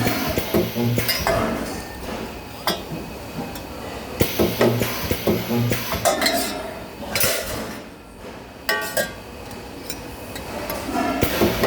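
Metal parts clanking and clinking during spot-welding work, with several short low electrical hums in between.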